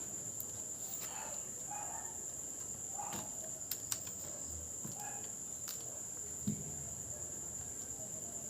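Steady high-pitched insect trilling, like crickets, throughout, with a few sharp light clicks from handling the laptop's plastic parts as it is put back together.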